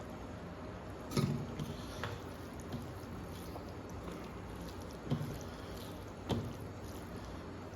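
Close-up eating sounds: a few short, wet smacks and squishes as rice with dal and vegetable curry is mixed and chewed, over a steady background hiss.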